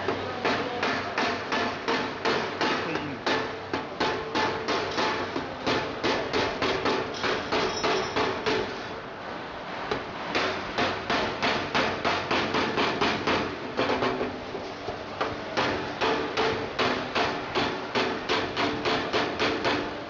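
Hammer striking a galvanized sheet-steel round duct elbow, about three blows a second with a metallic ring, as the elbow's segments are knocked together at their seams. The blows pause briefly about nine seconds in and again around fourteen seconds.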